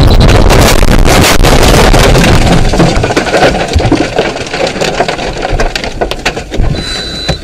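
A car crashing off the road into trees and brush: about two and a half seconds of loud crunching and scraping of branches against the body, then a scatter of sharp knocks and cracks that die down.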